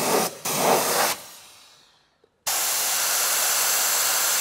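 Pneumatic sealant spray gun spraying a sprayable-sealant adhesive layer, giving a hiss of air and material. There are several short bursts in the first second, then a fade to a brief silence, then a steady hiss for about two seconds.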